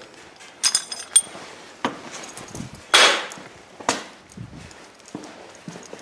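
Steel backhoe mounting pins clinking and knocking against metal as they are handled and set aside: a few separate metallic clinks, two ringing ones about a second in and a louder knock near the middle.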